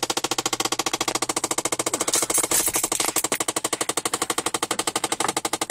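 Rapid, steady clicking from a 2006 Chevy Impala, about a dozen even clicks a second, that comes on after a remote start or a change of the climate setting and stops on its own; the owner suspects the air conditioning.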